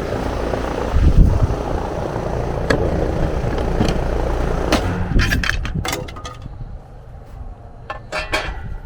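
Heat pump outdoor unit running steadily, its fan and compressor making a low, even drone; the unit is running short of refrigerant through a bad leak on the vapor line. About six seconds in the drone falls away, with a string of sharp clicks and knocks from about five seconds on.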